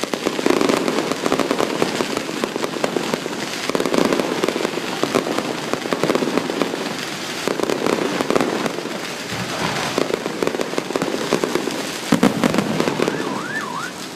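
Aerial fireworks going off in a continuous barrage of crackling and popping bursts, with a heavier burst about twelve seconds in.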